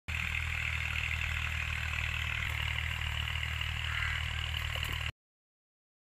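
A steady, engine-like hum, as of an engine idling, that stops abruptly about five seconds in.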